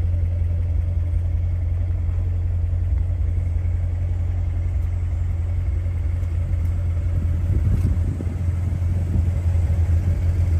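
2018 Chevrolet Corvette's 6.2-litre LT1 V8 idling in park through its performance exhaust, a steady low rumble.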